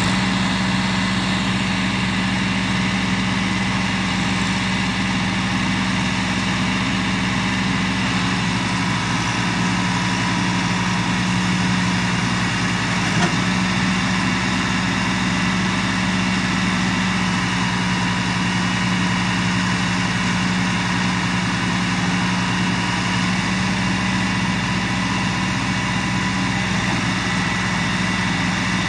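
Diesel engines of two tractors, a Massey Ferguson and a John Deere, running steadily under load as the front tractor tows the other and its loaded sugarcane trolley through rain-soaked mud. A short knock sounds about 13 seconds in.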